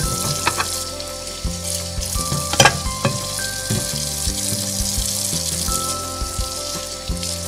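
Hot oil sizzling in a miniature steel wok as chopped onion, ginger, kaffir lime leaves and lemongrass are added to frying chili paste and stirred with a wooden spatula. A sharp tap about two and a half seconds in.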